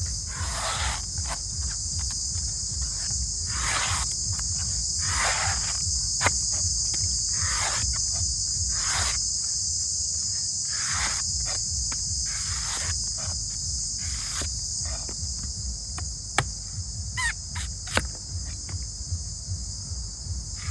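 Knife cutting through dry, aged coconut husk fibres: a creaking, rasping stroke every second or two, with a few sharp clicks. Under it runs a steady high chirring like crickets.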